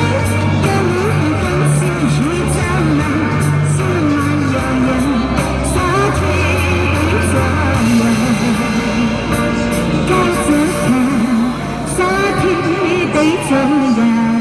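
A singer's voice carrying a melody with vibrato over an instrumental accompaniment with steady bass notes.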